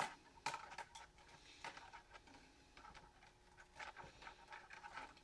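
Faint, scattered clicks and light knocks as the snapped ferrite core pieces and copper-wound CRT deflection yoke are handled.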